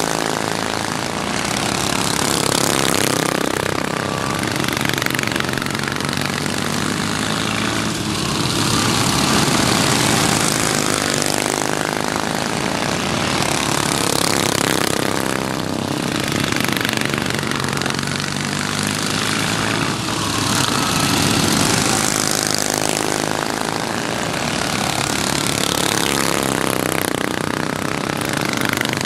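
Several racing lawnmowers' twin-cylinder flathead engines running hard, the sound swelling and fading every few seconds as the mowers pass by, with the pitch sliding as each one goes past.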